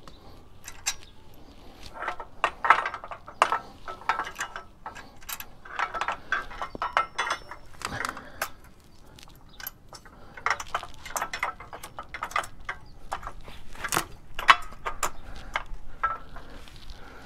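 Steel parts of an OTC motorcycle jack clinking, clicking and rattling as they are handled and fitted together by hand: a scatter of light metal knocks at an uneven pace, with one sharper click near the end.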